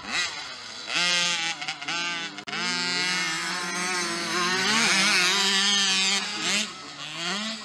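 65cc two-stroke mini motocross bikes revving hard, engine pitch climbing and dropping again and again with throttle and gear changes.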